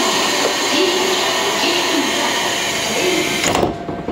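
Pneumatic door of a KiHa 47 diesel railcar closing: a long hiss of air that ends about three and a half seconds in with a thud as the door shuts.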